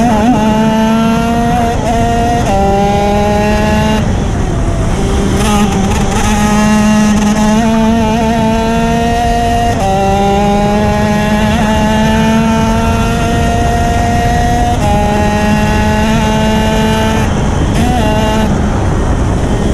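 Racing kart engine at high revs, heard onboard. Its pitch climbs steadily and then drops sharply several times.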